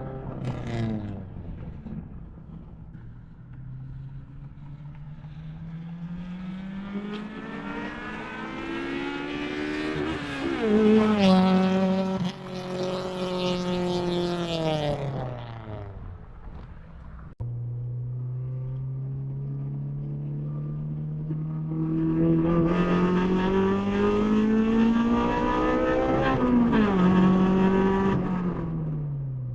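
Honda Civic EG with freshly replaced headers and its exhaust leak fixed, making two passes. Each time the engine note climbs steadily as the car accelerates, is loudest near its peak, then drops away, with an abrupt break about halfway through between the two runs.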